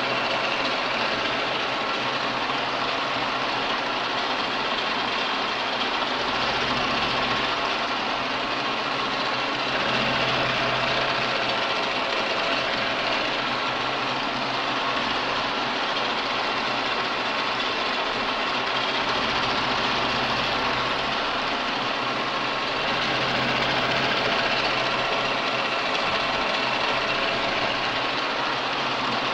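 A universal milling machine runs steadily while a vertical end mill cuts a radial step, the workpiece fed round on a rotary table: a continuous machine hum with the steady sound of the cutter in the metal.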